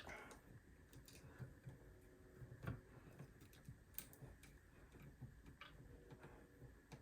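Near silence with a few faint, scattered clicks and taps, from hands handling electrical wires and a plastic wire nut.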